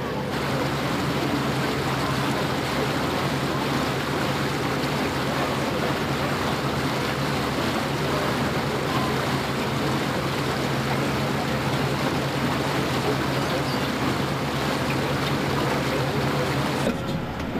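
Boat motor running steadily under way, a low even hum, under a continuous rush of wind and water.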